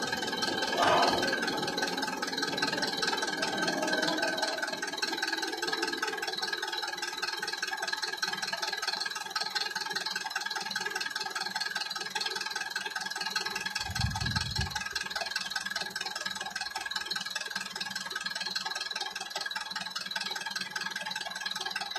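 Level-crossing warning bell of AŽD 97 crossing signals ringing steadily while the red lights flash. Under it, the rumble of a double-deck electric passenger train dies away over the first few seconds, and there is a short low rumble about two-thirds of the way through.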